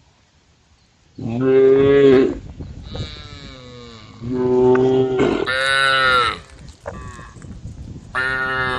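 Cows mooing: four long calls at different pitches, the first starting about a second in, one of them fainter, and another starting near the end.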